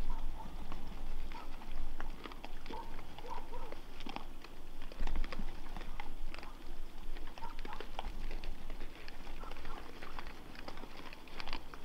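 Wild boar feeding at close range: a busy patter of crunching, chewing and hooves shuffling on gravel, with short high grunts from the group now and then.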